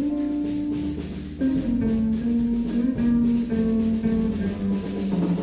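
Middle school jazz band recording playing a melodic line over a drum kit keeping a steady beat.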